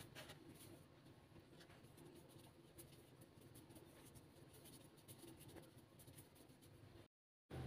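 Faint, soft scratchy rustling of hands kneading and squeezing fish dough in flour in a plastic bowl.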